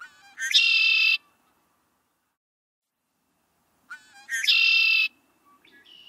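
Male red-winged blackbird singing twice, each song a few short lead-in notes followed by a loud trill of under a second; a fainter call starts near the end.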